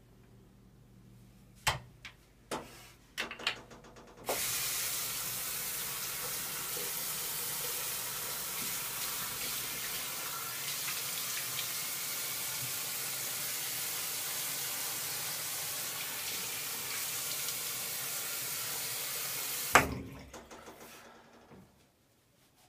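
Bathroom sink faucet running steadily into the basin for about fifteen seconds while a man washes his face. It starts suddenly after a few sharp knocks and is shut off with a loud clunk, followed by faint rustling of a towel.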